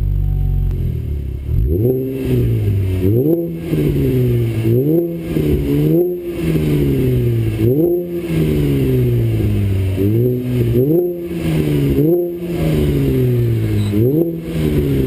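Chevrolet Camaro V6 engine breathing through an ARK Performance DT-S aftermarket exhaust: idling, then blipped through about ten quick revs in a row, each rising sharply and falling back to idle.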